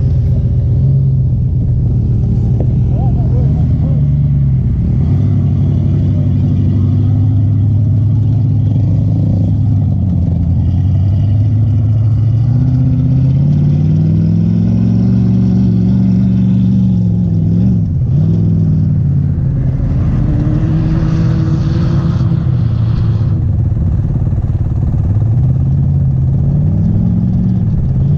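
Polaris Sportsman XP 1000 ATV engine running under load, its pitch rising and falling as the throttle is opened and closed. A brief rushing noise comes in around twenty seconds in.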